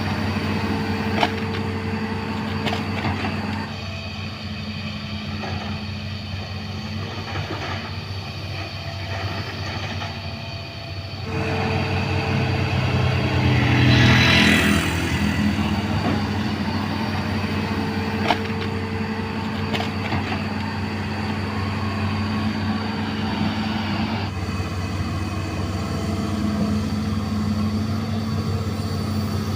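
Diesel engine of a 20-ton hydraulic excavator running steadily under work. It grows louder and harsher for a few seconds around the middle, and there are two sharp knocks, one about a second in and one past the middle.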